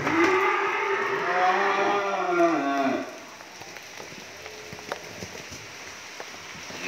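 A cow mooing once: a single long call of about three seconds that drops in pitch as it ends.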